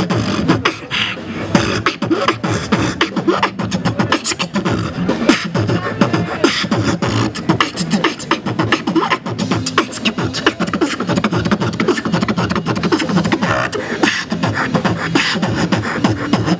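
Beatboxing into a handheld microphone: a fast, unbroken run of percussive mouth sounds, sharp clicks and hissing hits over deep thumps.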